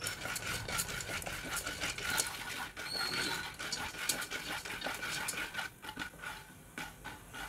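Raw corn kernels stirred in hot oil with a wooden spatula in an aluminium pressure cooker: a steady sizzle with many quick scraping clicks as the kernels are pushed around. The kernels have not yet begun to pop.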